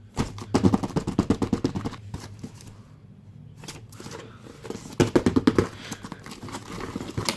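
Two bursts of rapid tapping, about ten taps a second: the first lasts nearly two seconds, the second starts about five seconds in and is shorter.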